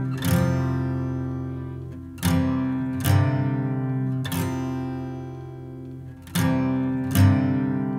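Background music: acoustic guitar strumming chords, each chord ringing out and fading before the next is struck a second or two later.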